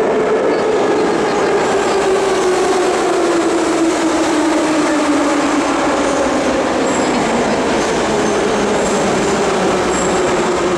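Metro train running at the station platform, a loud steady rumble with a motor whine that falls slowly and steadily in pitch as the train slows.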